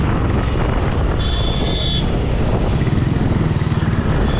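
Motorcycle engine running with a steady low rumble. A brief high-pitched tone cuts in about a second in and lasts under a second.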